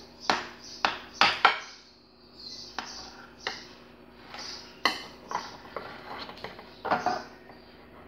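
Metal cake server clinking and scraping against a glass pie dish as a piece of cake is cut and lifted out: a series of sharp clinks, the loudest in the first second and a half, with a few more later on.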